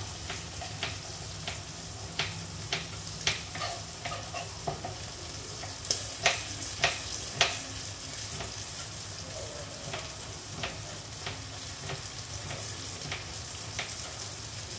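Knife slicing carrot on a plastic cutting board, a sharp knock about every 0.6 s, a few louder ones past the middle. Under it, a steady sizzle of garlic, shallots and chilies frying in oil in the pan.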